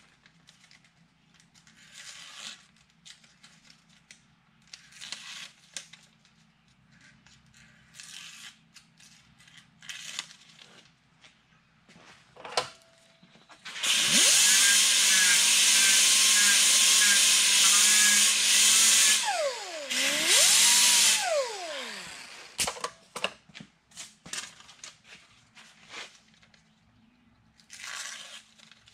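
Pneumatic air sander with a Scotch-Brite pad, run for about five seconds against a baler twine knife to hone its edge, then spinning down with a falling whine. It is given one more short burst and winds down to a stop. Quiet scraping and handling sounds come before and after.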